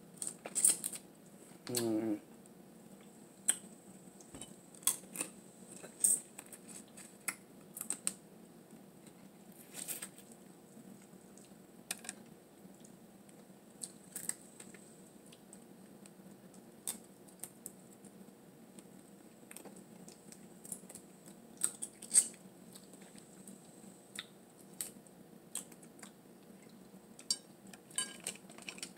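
Close-up eating sounds: irregular sharp clicks and smacks of eating a blue crab seafood boil, with a metal spoon against the glass bowl. A brief wavering voiced sound comes about two seconds in.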